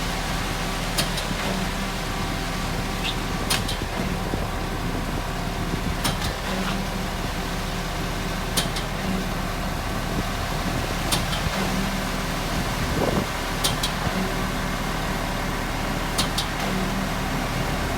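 Concrete mixer truck running steadily, with sharp clicks recurring about every two and a half seconds.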